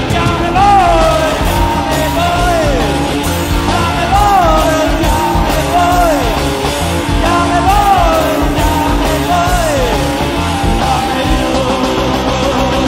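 A rock band playing live, drums and bass under a lead melody that rises and then slides down in pitch, repeating about every two seconds.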